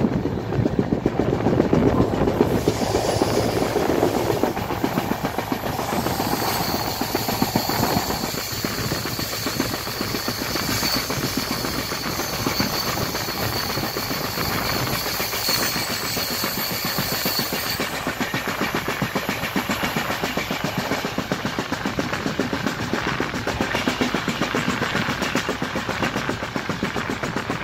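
Indian Railways sleeper coach running on the rails, heard from inside the coach: a fast, even clatter of wheels over track with the repeated knock of a flat wheel. A high steady whine rises over it for about ten seconds in the middle.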